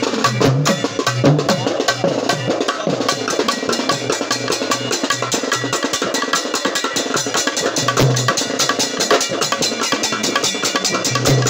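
Sri Lankan papare band drums, hand-struck and stick-beaten, playing a fast, dense rhythm. A deeper drum beats under the run of quick strokes and drops out for a few seconds after the middle.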